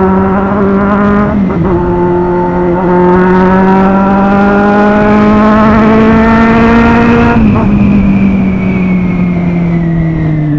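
Kawasaki Z800 inline-four motorcycle engine running at high revs under way, its note climbing slowly with a brief dip about a second and a half in. Near the end it breaks off sharply and the pitch then slowly falls as the bike eases off.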